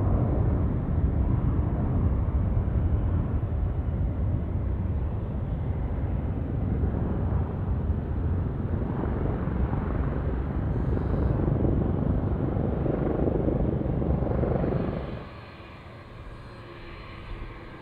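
A Boeing 747's four jet engines at takeoff thrust, a loud low rumble as it lifts off and climbs away. About 15 seconds in it gives way to the much quieter, steady whine of a twin-engine Airbus A330's engines near idle on the runway.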